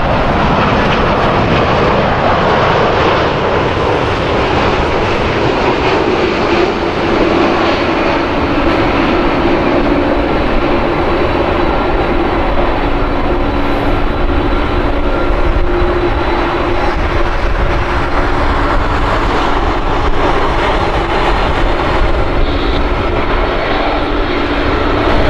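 Jet engines of a Boeing 787-9 airliner landing: loud, steady jet noise as it passes low on final approach, touches down and rolls out, with a low humming tone through the middle stretch.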